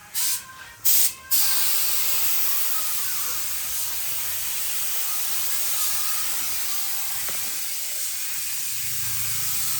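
Compressed air hissing from a nozzle: two short blasts, then a continuous spray-like hiss.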